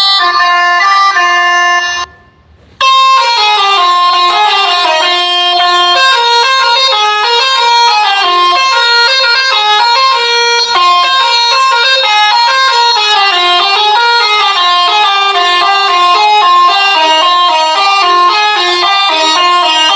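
Multi-tone telolet basuri horn playing a fast melody of short stepped notes, cutting out briefly about two seconds in, then playing on.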